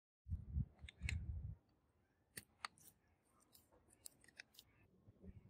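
Screwdriver unscrewing the chassis screws of a die-cast model Humvee: a few low knocks in the first second and a half, then scattered small metallic clicks and scrapes as the screws turn.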